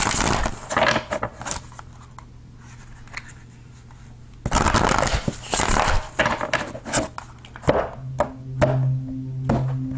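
A deck of tarot cards being shuffled and handled in two spells of rustling, one at the start and one about halfway through, then short taps as cards are set down on the table. Soft background music with a steady low note comes in near the end.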